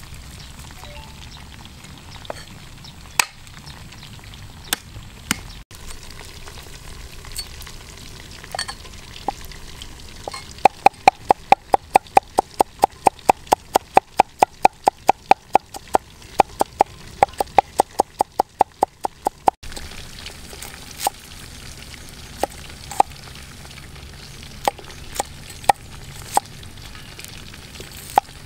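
Cleaver chopping garlic and shallots on a wooden chopping board. Scattered single chops lead into a fast, even run of about five chops a second lasting some nine seconds, then slower scattered chops. A steady sizzle of oil frying runs underneath.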